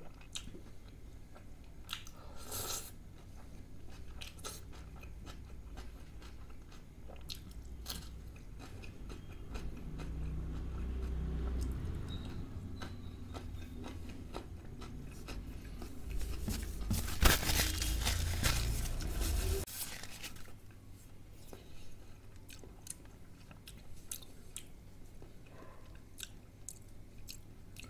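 Close-miked eating: crunchy bites and chewing of raw onion and green chilli from the salad and of stuffed kulcha bread, with wet mouth sounds. Scattered crunches run throughout, and the loudest stretch of crunching comes about two-thirds of the way in.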